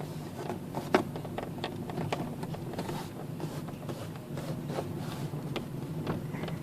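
Hyundai Solaris dashboard plastic creaking and ticking in short, irregular clicks, the sharpest about a second in, over a steady low hum of road noise in the cabin.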